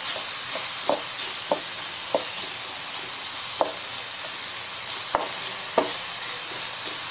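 Chopped onions sizzling as they sauté in oil in a ridged grill pan, stirred with a wooden spatula that knocks lightly against the pan about six times.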